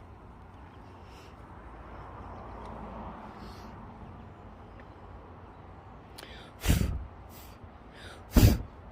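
A person sneezing twice, two short loud sneezes a little under two seconds apart near the end, each with a quick intake of breath before it, over a steady low outdoor rumble.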